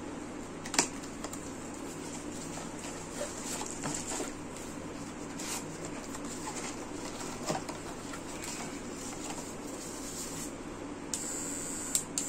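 Cardboard trimmer box and its inner tray being opened and handled, with plastic wrapping rustling: scattered small clicks and rustles. A brief steady high-pitched sound starts about eleven seconds in.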